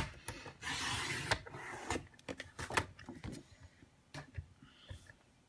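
Paper trimmer's sliding blade run along its rail through a sheet of cardstock: a sharp click, then a scraping hiss lasting about a second and a half, followed by a few light clicks.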